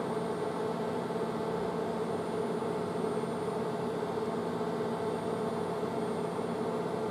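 Steady machine hum and hiss of a CNC lathe left running, with no cutting heard.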